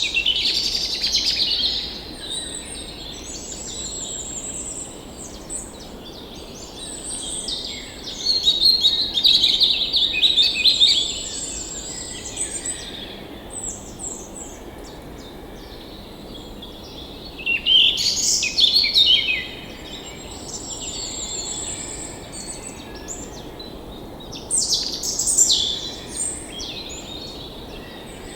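Several songbirds chirping and trilling, with louder bursts of overlapping calls every several seconds over a faint steady background hiss.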